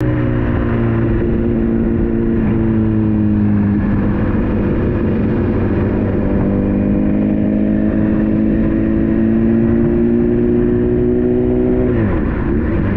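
Motorcycle engine running under way. Its pitch eases down, then climbs slowly for several seconds, and drops sharply near the end before picking up again.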